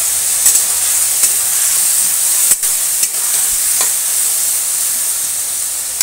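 Potatoes in masala paste sizzling in a metal kadhai, with a steady high hiss, while a metal spatula stirs them, clicking and scraping against the pan several times. The masala is being roasted (bhuna) until fragrant.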